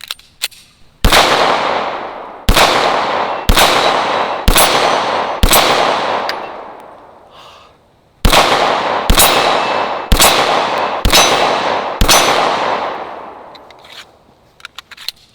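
Beretta 92FS 9mm pistol fired ten times in two strings of five, about a second between shots and a pause of about three seconds between strings. Each shot has a long fading echo, and hits on a steel target ring out.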